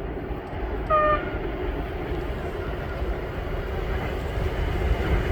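A train horn gives one short toot about a second in, over the steady low rumble of a train that grows louder near the end.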